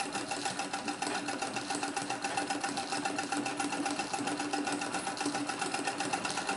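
1927 Singer 66K treadle sewing machine stitching at a steady speed: a fast, even clatter of the needle and mechanism.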